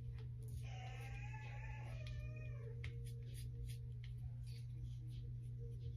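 Domestic cat meowing twice, a longer call followed by a shorter one, over a steady low hum.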